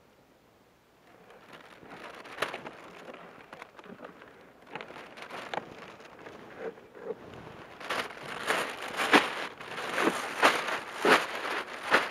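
Plastic carrier bag of caught perch crinkling and rustling as it is handled, in crackly bursts that grow louder and come faster toward the end.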